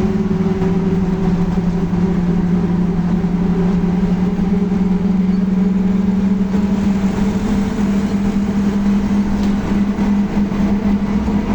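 Volkswagen 17-230 OD bus on the move, with a loud steady hum from its differential running over the drivetrain and road noise.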